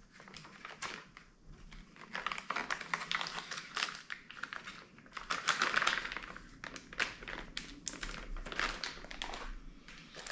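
Clear plastic packaging bag crinkling and rustling in irregular bursts as a small part is unwrapped and handled.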